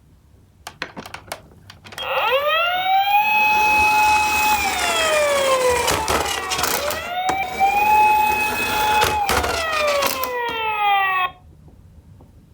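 Electronic wailing siren starting about two seconds in: it rises, holds, and falls slowly, then rises and holds again before falling and cutting off abruptly near the end. Sharp clicks and knocks from toy minicars on a cardboard slope come before and during it.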